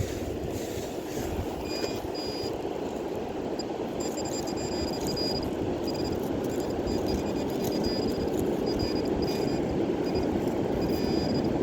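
High-pitched electronic tone from a handheld metal-detecting pinpointer, sounding on and off as it is probed for a target in the sand. Beneath it is a steady low rushing noise.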